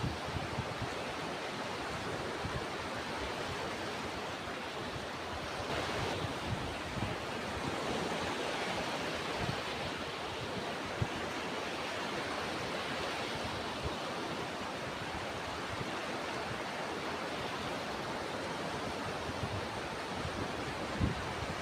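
Ocean surf: a continuous wash of breaking waves that swells and eases slowly, with a few brief low bumps of wind on the microphone.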